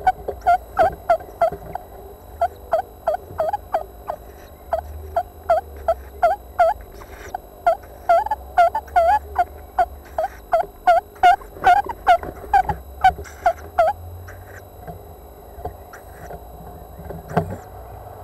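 Tawny owls in a nest box calling as a mouse is passed from the male to the owlet: a fast run of short, squeaky calls, about three a second, which stops after some fourteen seconds. A single knock comes near the end.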